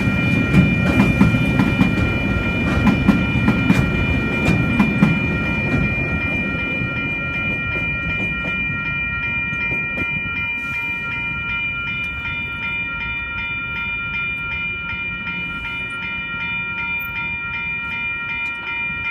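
Train wagons rumbling and clattering over the rails, loudest in the first few seconds and then fading, over the steady repeating ring of level crossing warning bells.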